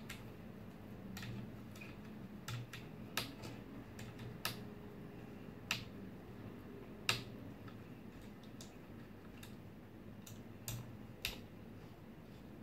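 Irregular sharp clicks and taps, about ten of them and unevenly spaced, from hands handling the plastic and metal parts of a Prusa 3D printer's extruder. The strongest click comes about halfway through.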